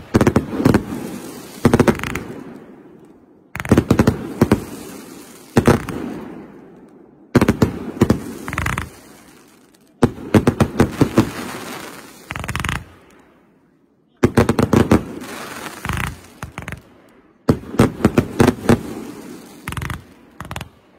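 Fireworks going off overhead: volleys of sharp bangs from aerial shells and comets, one group every two seconds or so, each dying away, a few cutting off suddenly.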